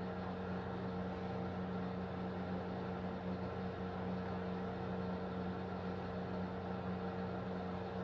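A steady low hum over a faint hiss, unchanging throughout: the drone of a motor or appliance running in the room.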